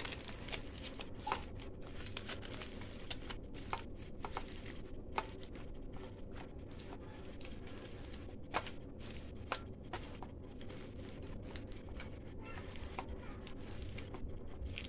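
Aluminium foil crinkling in irregular crackles as a hand presses and folds it around a whole fish.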